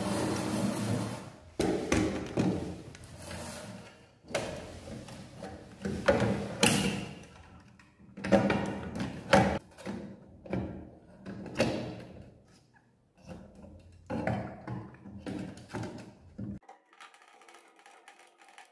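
A transistor radio's plastic case and parts being handled during reassembly: a string of knocks, thuds and clatters of plastic and metal, with short rubbing sounds, dying down to a faint hiss near the end.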